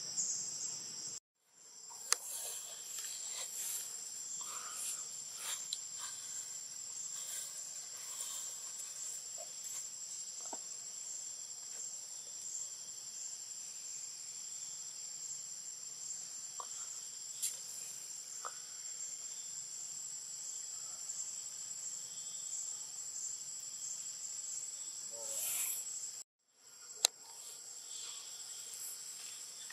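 Steady, high-pitched insect chorus that drops out briefly twice, with a few scattered clicks.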